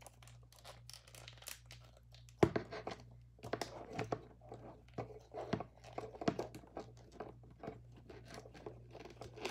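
McFarlane Medieval Spawn plastic action figure and its shield being handled and pressed together: a scatter of small plastic clicks and scrapes, with a sharper knock about two and a half seconds in.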